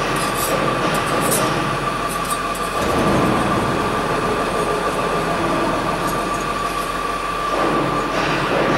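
Machinery running steadily with a constant high whine over a rushing noise, briefly louder about three seconds in and again near the end.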